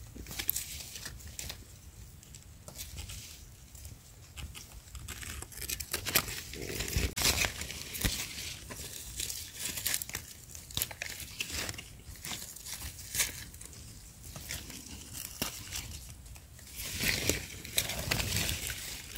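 Dry leaf litter rustling and crackling as hands work through it to pick wild mushrooms, in irregular bursts with scattered sharp snaps, busiest about a third of the way in and again near the end.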